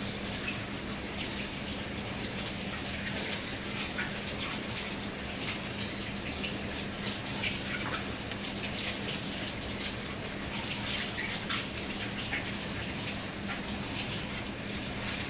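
Rubbing and wiping on a MacBook Air's hard plastic snap-on case to clear a smudge: a steady scrubbing hiss with many small crackles, over a faint low hum.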